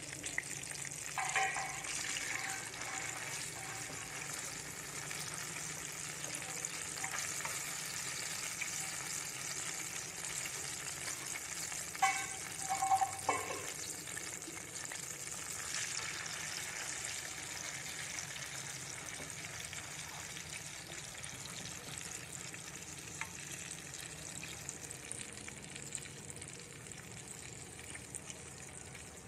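Pieces of salted fermented rat frying in oil in a nonstick pan, a steady sizzling hiss. A few brief clinks come about a second in and a cluster around twelve to thirteen seconds, the loudest moments.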